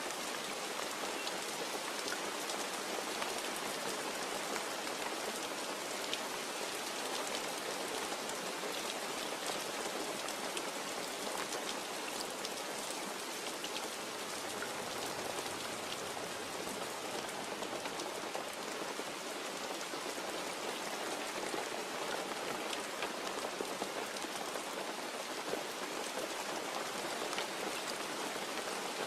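Steady rain falling, with many small drop ticks on a hard surface and no thunder.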